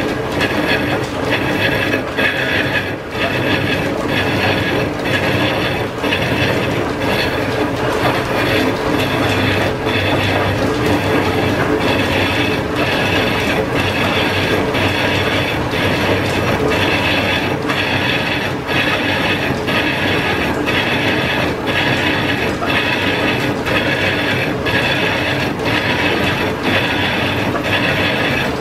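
Line-shaft-driven metal lathe running with its tool roughing a piston-ring casting. There is a steady clatter of gears and belt, with a regular beat about one and a half times a second.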